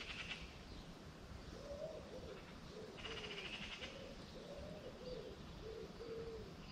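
A pigeon cooing faintly, a run of low, arching coos beginning about a second and a half in.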